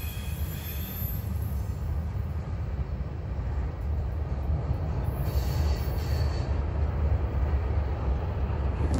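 Steady low rumble of a CSX freight train's cars rolling along the track, with a faint thin wheel squeal about five to six seconds in.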